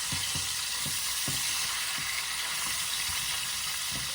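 Pork chops frying in hot bacon grease in a skillet: a steady sizzle as the meat browns.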